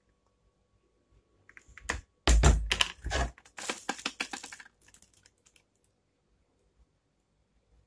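A quick run of plastic clicks and knocks from a BOLDe Supercook mini rice cooker's housing being handled and turned over, starting about one and a half seconds in and dying away by about five seconds in.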